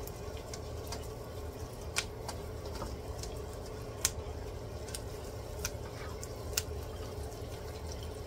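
Diced onions, garlic and ginger frying gently in oil in a wok while being stirred with a spatula, a light sizzle with a few sharp ticks. A steady low hum runs underneath.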